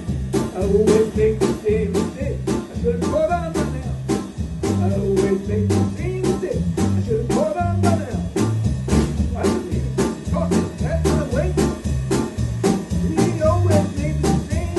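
Small blues band playing live: a harmonica, cupped against a microphone, bends the lead melody over keyboard chords and bass and a drum kit keeping a steady beat of about three hits a second.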